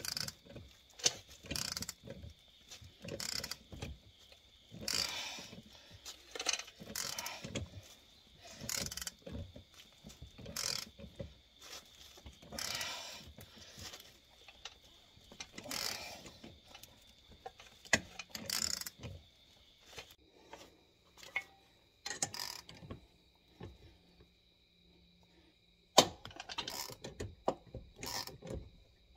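Ratchet wrench clicking in a series of strokes, about one every second or two, as it cranks the forcing bolt of a steering-wheel puller against a brake drum seized on its hub. It goes quieter for a few seconds near the end, then comes a sharp click and a quick run of clicks.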